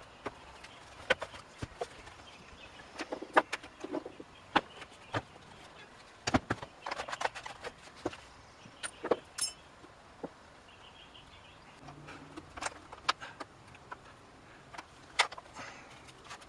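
Irregular clicks, taps and clunks of chainsaw parts and hand tools being handled during reassembly, some sharp and loud, scattered unevenly with short quiet gaps.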